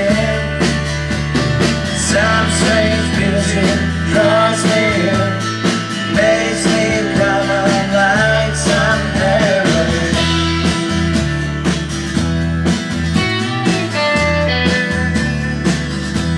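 Live rock band playing a slow rock song: electric and acoustic guitars over bass and drums, with a bending lead line on top.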